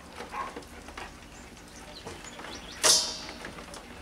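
Mangrove crabs' shells and legs scratching and clicking against a plastic tub as they are handled and scramble about, with one loud sharp clack about three seconds in.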